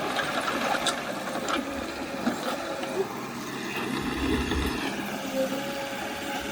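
Diesel engine of heavy earthmoving machinery running steadily, with a few short metallic clanks and a heavier low rumble about two-thirds of the way through.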